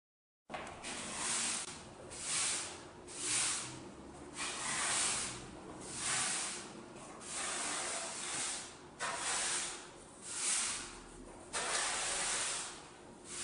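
Broom bristles sweeping a concrete floor: a run of repeated swishing strokes, roughly one a second, starting suddenly about half a second in.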